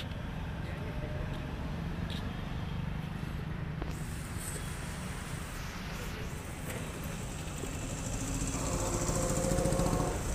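Road traffic: a steady low rumble of passing cars, motorbikes and trucks. One vehicle engine grows louder near the end as it passes close.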